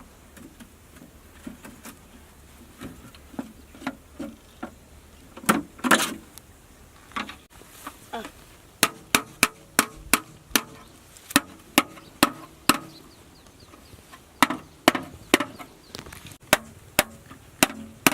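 A series of sharp knocks, a few scattered at first, then coming quickly, about two or three a second, through the second half.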